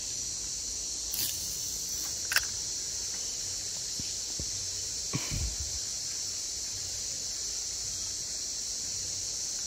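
Steady high-pitched shrilling of insects such as crickets, with two sharp clicks about one and two and a half seconds in and a short low thump about five seconds in.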